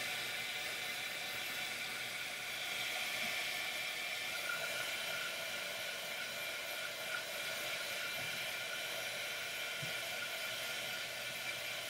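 A steady hiss with a faint whir, with no distinct knocks or clicks.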